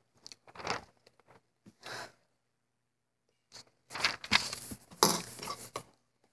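Sheet of notebook paper rustling and crinkling as it is handled close to the microphone: two short rustles, then a longer, louder stretch from about three and a half seconds in.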